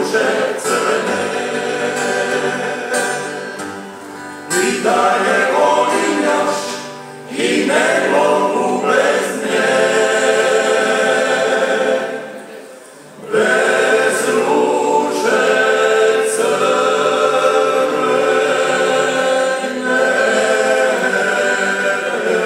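A Croatian klapa, a male vocal ensemble singing sustained close-harmony chords, with acoustic guitar and double bass accompanying. The phrases break off briefly a few times, most clearly about twelve seconds in, before the voices come back in together.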